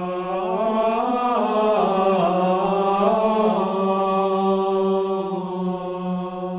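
Two men singing Gregorian chant in unison: a flowing line that moves up and down over several notes, then settles on one long held note that fades out at the end.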